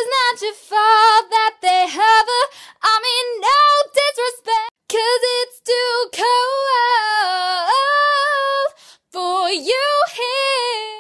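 A young woman singing solo and unaccompanied in a light lyric soprano: short phrases with vibrato and quick runs, broken by a few brief pauses between phrases.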